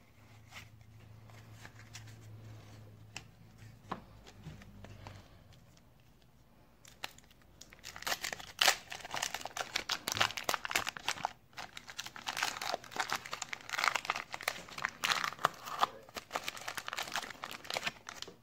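Baseball card pack wrapper torn open by hand and crumpled: quiet card handling at first, then a dense, loud run of crinkling and tearing from about seven seconds in.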